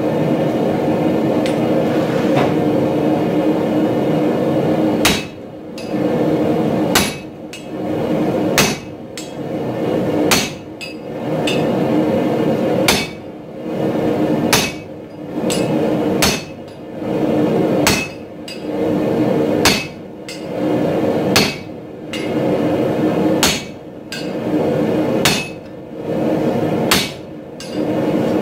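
Hammer blows on a handled punch driving the eye into a red-hot steel hammer head on the anvil: a regular series of about thirteen sharp metallic strikes, one every second and a half to two seconds, starting about five seconds in, over a steady hum.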